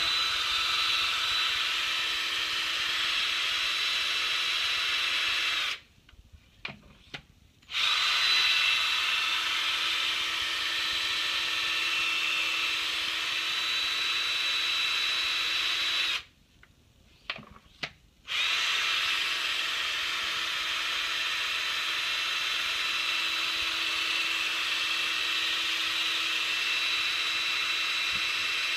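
Power drill spinning a "Spin It Off" magnetic black-sand separator wand over black sand. The drill runs with a steady whine in three long stretches, stopping for about two seconds roughly six seconds in and again about sixteen seconds in.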